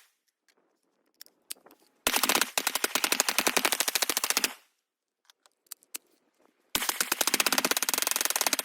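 Colt AR-15-pattern rifle firing long fully automatic bursts, the shots coming in a rapid even string: one burst of about two and a half seconds, then a pause, then a second burst near the end. Faint clicks fall in the pauses between bursts.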